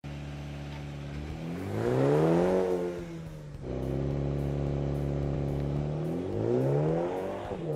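Mini John Cooper Works GP's 2.0-litre turbocharged four-cylinder engine idling steadily. It is revved twice, about a second in and again near the end, each time rising for about a second and dropping back.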